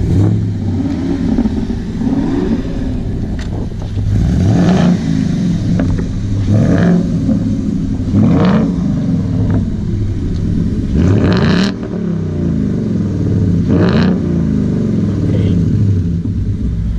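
Parked car engines revved again and again over a steady idle: about seven sharp rev blips that climb and fall back, one every couple of seconds, trading off as in a rev battle.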